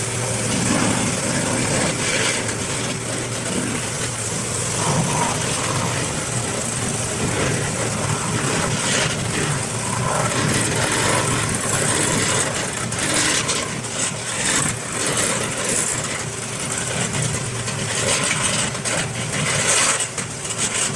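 Industrial wood shredder running: a steady motor drone with irregular cracks and crunches of wood being ground up, busiest in the second half.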